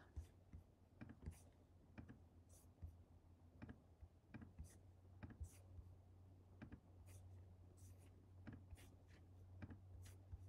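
Faint, irregular clicks of a computer mouse, about one or two a second, over a low steady hum.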